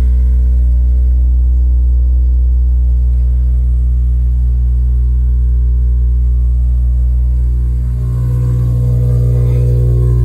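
A 2008 Honda Civic Si's 2.0-litre K-series four-cylinder, fitted with TSX camshafts, idling steadily just after a cold start. About eight seconds in, its sound briefly dips and then comes back brighter.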